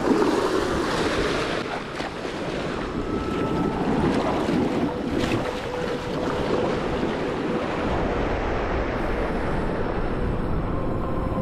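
Wind buffeting the microphone over waves washing against the jetty, a steady rushing noise. A faint steady hum comes in about halfway through.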